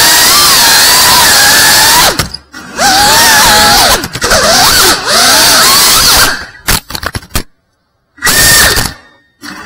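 FPV quadcopter's brushless motors and propellers whining loudly, the pitch sliding up and down with the throttle. The sound cuts out suddenly several times, once for about a second near the end, and comes back each time.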